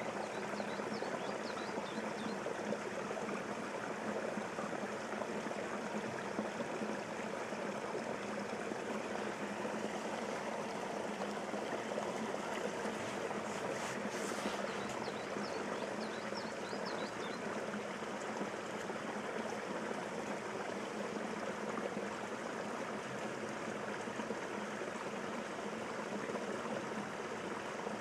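Steady rush of flowing, trickling water, unchanging throughout, with a few faint high chirps over it.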